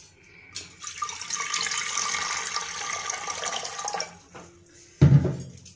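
Water poured into an open metal pressure cooker, splashing in for about three and a half seconds. A short knock follows about a second later.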